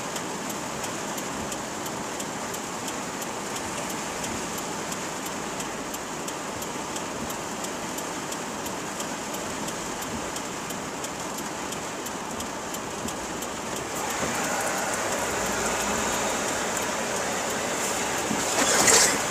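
Heavy rain falling on a car's windshield and roof, heard from inside the car as a steady hiss that grows louder about two thirds of the way through.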